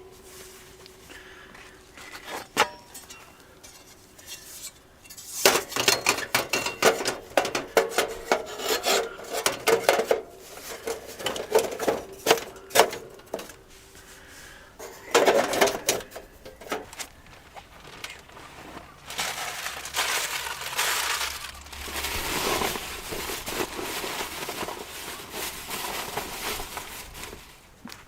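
Camp cookware and utensils clinking and clattering as they are handled, in bursts of quick knocks, followed by a longer stretch of softer rustling noise.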